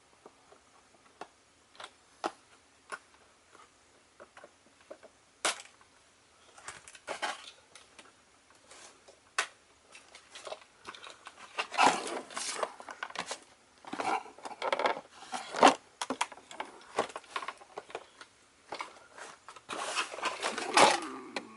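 Toy packaging being handled and pulled apart by hand. Sharp scattered clicks and taps come first, then louder stretches of rustling and crinkling that are busiest in the second half.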